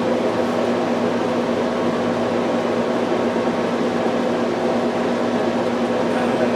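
A steady whir with an electrical hum, as from a motor-driven appliance or fan, holding even with no breaks.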